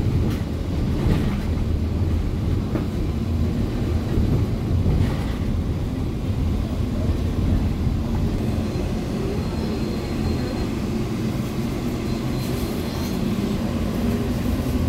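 Cabin noise of a Caio Mondego II Volvo B8RLEA city bus under way: its diesel engine and road rumble run steadily. A faint high whine comes and goes twice in the second half.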